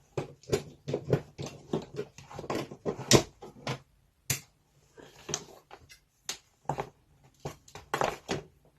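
Irregular clicks and knocks of a rotary multi-tool and its power cord being handled while the plug is pushed into a socket.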